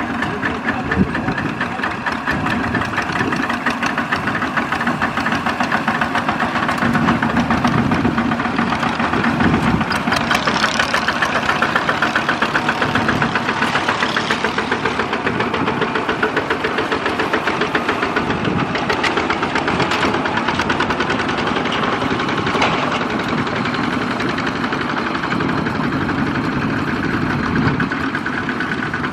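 Single-cylinder diesel engine of a two-wheel walking tractor running with a rapid, even beat, a little louder in the middle stretch.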